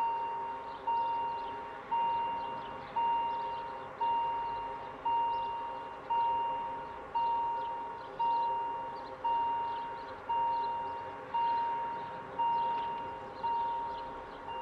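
Railway level-crossing warning bell striking about once a second, each stroke ringing out and fading before the next. It signals that the barriers are about to come down for an approaching train.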